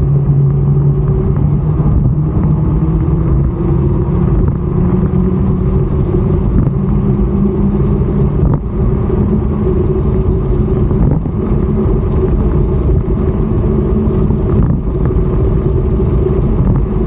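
Wind rushing over the microphone together with the hum of the NANROBOT Lightning 3.0 electric scooter's dual motors. The hum rises slowly in pitch over the first several seconds as the scooter accelerates at full power (dual motor, pedal assist level 3) toward its top speed, then holds steady.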